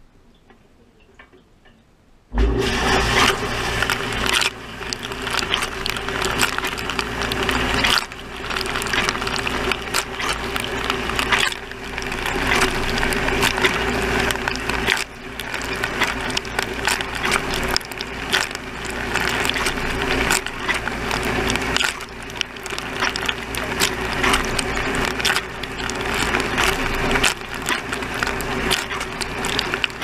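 Dishwasher wash cycle heard from inside the tub: after a quiet couple of seconds, water spray starts suddenly and beats loudly and unevenly on the racks and the camera, over a steady hum.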